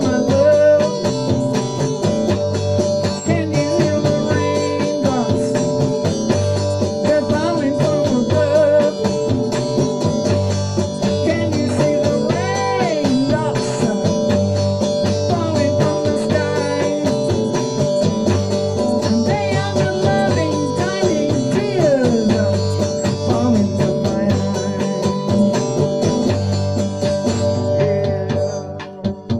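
Electric guitar played through an amp in a loose, bluesy style, with bent notes, and a steady whine from the amp running underneath.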